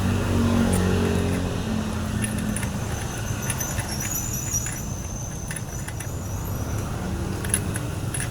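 A chainsaw's small two-stroke engine running steadily, with faint clicks and rattles over it from about two seconds in.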